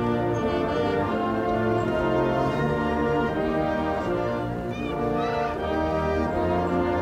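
Brass band playing a march, with horns, trombones and trumpets sounding held chords that change every half second or so.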